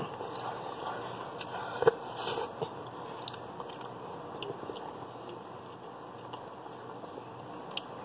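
Someone biting into a microwaved bean, rice and cheese burrito and chewing it, with a brief crisp rustle about two seconds in and scattered soft clicks of chewing after.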